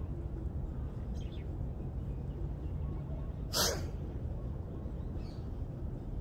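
A single short, forceful breath blown out about three and a half seconds in, as the body swings down into a forward fold. A steady low rumble runs underneath.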